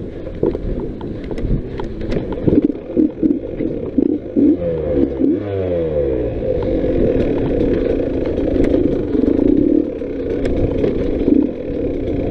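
Dirt bike engine running under throttle on a trail, its revs falling sharply about five seconds in, then holding steadier. Short clicks and clatter from the bike riding over rough ground.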